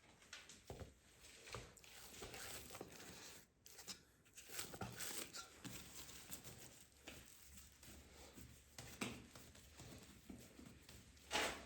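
Faint irregular rustling and light crinkling, like hands handling or tearing something soft.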